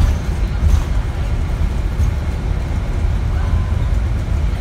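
Scania diesel engine of an ADL Enviro400 MMC double-deck bus running, heard from inside the passenger cabin as a steady low rumble mixed with road noise, with a few faint rattles.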